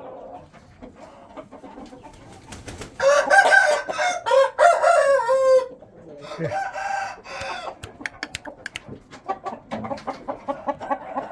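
A young rooster crowing once, a long call starting about three seconds in that drops in pitch at its end. Shorter clucking calls and scattered sharp clicks follow.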